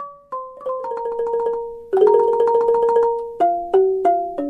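Instrumental music on a marimba-like mallet instrument: a melody of struck notes that ring and fade, with each note quickly re-struck several times a second and some two- or three-note chords.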